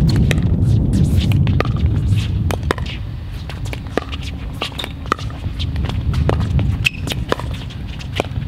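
Repeated sharp pops of composite paddles striking a hollow plastic pickleball in a quick volley exchange, over a steady low rumble of wind on the microphone.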